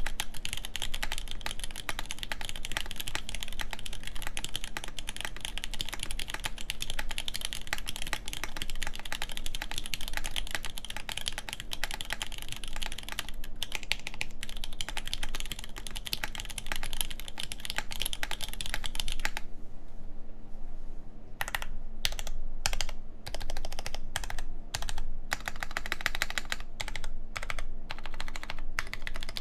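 LZ Reborn Edition custom mechanical keyboard with Nixdorf Cherry MX Black linear switches on a full aluminum plate and Desko keycaps, typed on quickly in a dense, steady stream of keystrokes. About twenty seconds in the typing breaks into shorter runs of keystrokes with brief pauses between them.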